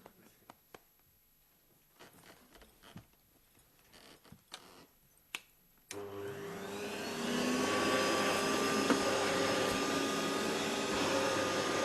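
A few faint clicks and knocks, then about six seconds in a vacuum cleaner switches on: its motor spins up with a rising whine and settles into a steady run with a loud airy hiss.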